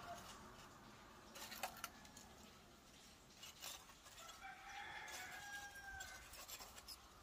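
A rooster crowing faintly: the tail of one crow at the very start, then a full crow of about a second and a half about four and a half seconds in. A few light clinks of charcoal lumps being set in a metal fire pot.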